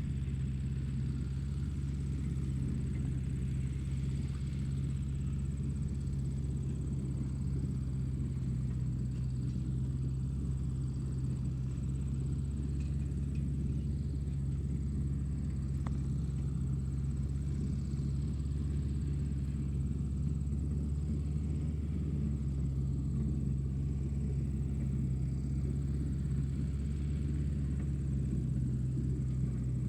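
Tractor engine running steadily at a constant speed, a deep, even rumble with no change in pitch.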